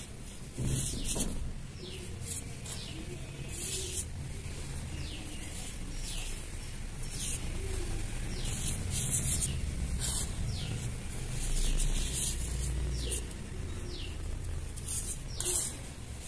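Fingers swishing through loose, dry cement powder and sand in short light strokes, about once a second.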